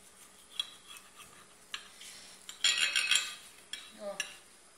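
Metal knife and fork cutting an omelette on a ceramic plate: a few separate clinks against the plate, then a louder spell of scraping and clinking about two and a half seconds in.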